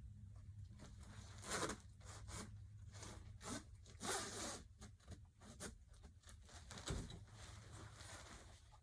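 A jacket being handled: fabric rustling and a zipper scraping in a string of short bursts, the loudest about one and a half, four and seven seconds in.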